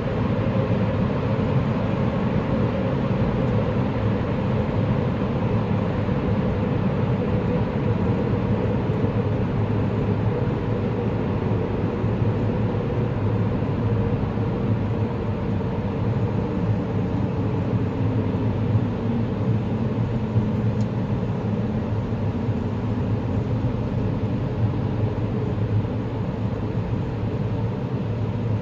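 Tunnel noise: a steady, low rumble of vehicle traffic inside a tunnel, heaviest in the bass, with faint hums that slowly drift in pitch.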